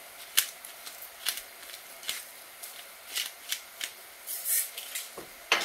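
Butter-and-milk sauce bubbling on high heat in a nonstick pan: irregular sharp pops and crackles over a faint hiss, with two louder knocks near the end.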